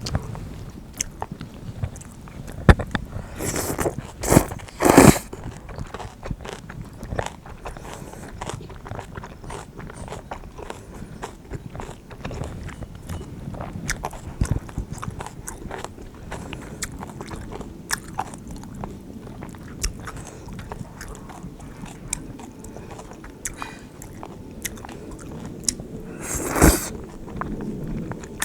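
Close-miked eating of bibim-guksu noodles with crisp kimchi: steady chewing and crunching with many small clicks, and a few louder noisy bursts about four to five seconds in and again near the end.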